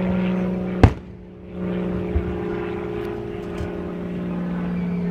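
Aerial firework shells bursting: one sharp bang about a second in and a couple of fainter pops later, over a steady droning hum.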